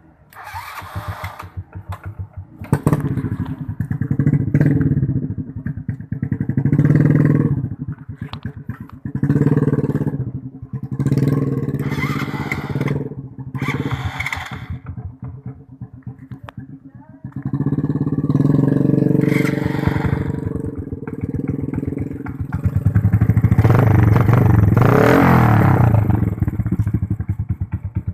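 Modified Honda Supra motorcycle engine being revved in repeated throttle blips, about eight rises and falls in engine speed with idling between, the last rev held longer and louder near the end.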